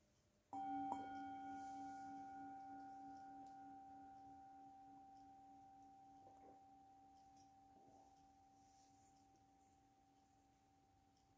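Metal singing bowl struck once, ringing with a low tone and a clearer higher tone that pulses gently, then slowly fading away.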